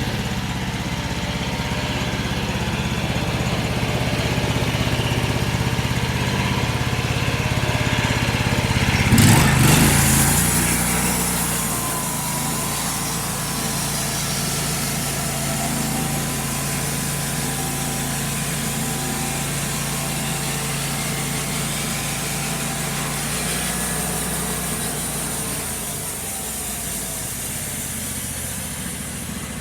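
Homemade bandsaw mill running, its engine steady while the blade cuts a board from a small log. About nine seconds in there is a loud burst, after which the engine note drops as if under load and a high hiss runs on for some fifteen seconds.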